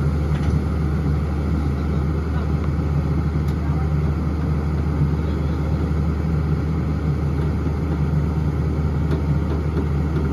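Diesel engine of a hydraulic crawler excavator running steadily under a constant low hum.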